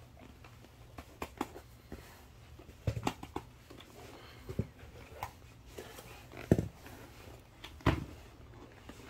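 Irregular soft hand pats with a few dull thumps. A crawling baby slaps at an inflatable water play mat, and a grown-up's hand pats the baby's bottom.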